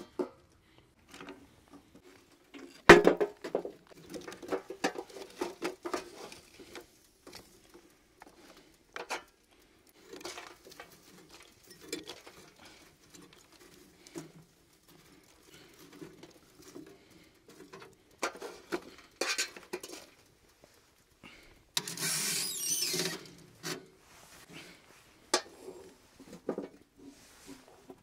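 Irregular clatter and knocks of dishes and kitchen utensils being handled while cooking, with a sharp knock about three seconds in. A brief rush of noise lasts about a second and a half, about three-quarters of the way through.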